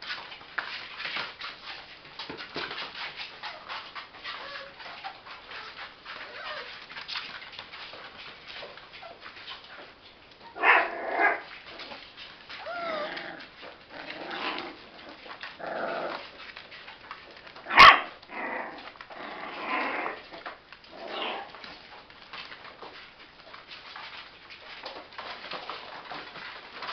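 Chocolate Labrador puppies about five weeks old whining, yelping and growling at play, over a busy scrabble of small paws on plastic sheeting. A single sharp knock about two-thirds of the way through is the loudest sound.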